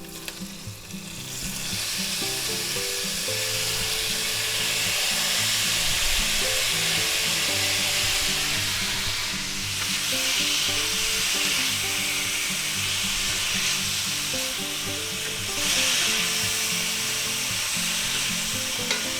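Mixed vegetables sizzling in hot oil in a cast iron skillet, frying with a steady hiss that builds up about a second and a half in and swells briefly twice. Soft background music plays low underneath.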